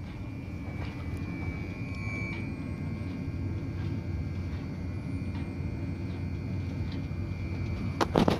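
DeWind D48/4 wind turbine running: a steady low drone with a constant high-pitched whine over it and faint scattered ticks. A quick cluster of loud sharp knocks comes near the end.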